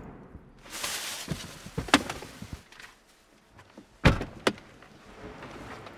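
Audi car doors being opened, a rustle and a latch click, then two doors slammed shut about half a second apart around four seconds in.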